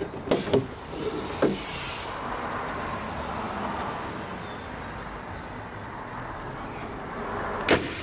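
A few light clicks and knocks as the Mercedes-Benz C220's bonnet is released and raised. Near the end comes a single loud slam as the bonnet is shut.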